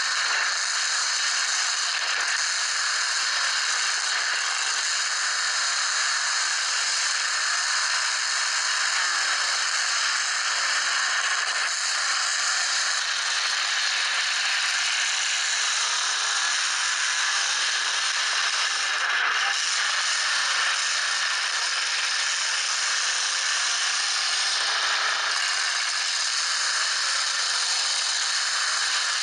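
Demolition derby trucks' engines revving under load, heard as a steady rattling hiss with faint rising and falling pitch underneath.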